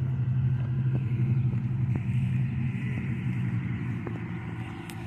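A motor vehicle's engine running as it passes on the street, a steady low hum that slowly fades as it moves away.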